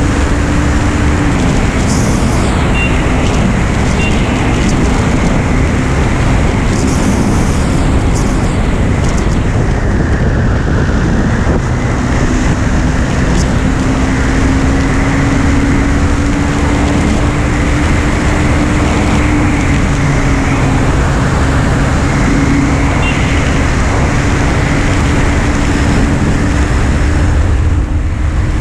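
KTM Duke 390's single-cylinder engine running at speed, heard under a loud steady wind rush over the camera. The engine note holds fairly even, dipping slightly once near the start and rising gently before easing back later on.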